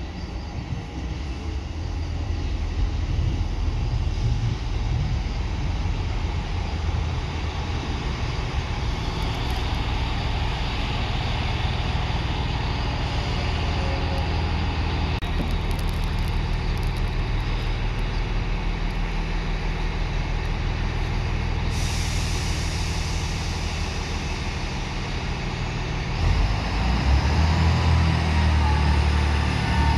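Class 158 diesel multiple unit running in and standing at the platform, its underfloor diesel engines running. A steady hiss of air starts suddenly about two-thirds of the way through, and the engines get louder near the end.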